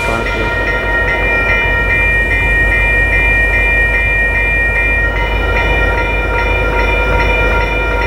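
Railroad crossing signal bells ringing, several bell tones overlapping and restruck about two to three times a second, over the low rumble of freight cars rolling through the crossing.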